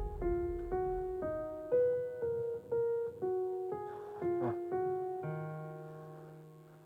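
Background music: a piano-like keyboard playing a melody of single notes, about two a second, ending on a held chord about five seconds in that fades out.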